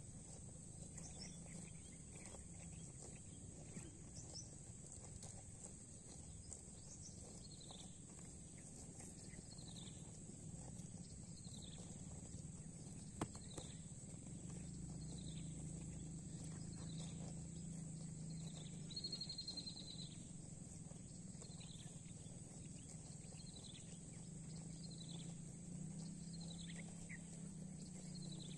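A bird repeats a short, falling whistle about once a second over a steady low hum, with one sharp knock about halfway through.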